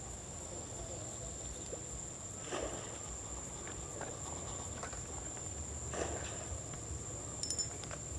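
A steady, high-pitched insect drone, over a low rumble of wind on the microphone, with a couple of faint soft knocks.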